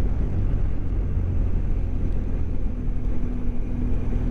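BMW GS motorcycle riding along at a steady pace: engine running with road noise. A steady low hum joins about two-thirds of the way through.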